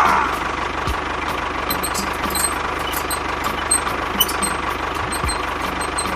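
Engine of a mini tractor running steadily at idle, with a few light clicks and knocks over it.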